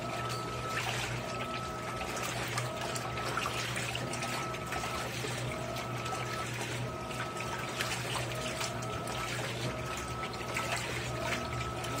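Electrolux LAI17 17 kg top-load washing machine agitating towels in shallow water during the rinse: water sloshing and churning over a steady motor hum. A short motor whine repeats about once a second with each agitator stroke.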